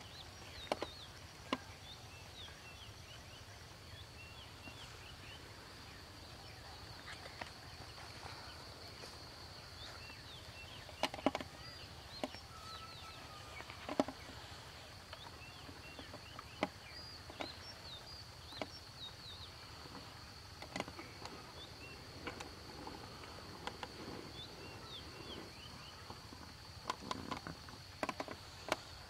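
Rural outdoor ambience: a steady high-pitched insect drone with many short bird chirps, and occasional sharp clicks and rustles.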